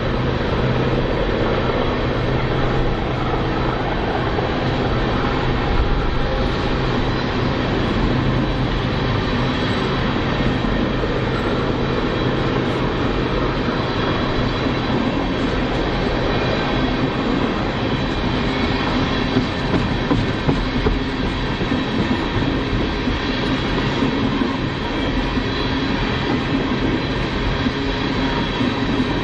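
Freight train cars rolling past at close range: steady noise of steel wheels on the rails, with no break across the whole stretch.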